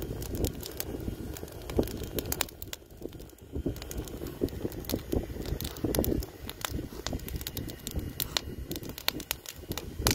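Wood fire crackling, with sharp irregular pops and snaps over a low, uneven rumble.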